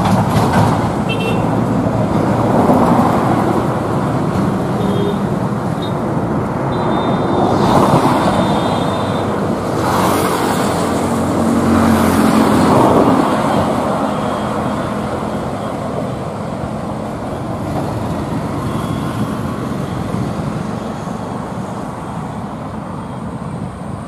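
Road traffic on a highway bridge: trucks and cars passing with a continuous rumble of engines and tyres. It swells several times in the first half as vehicles go by, then slowly fades.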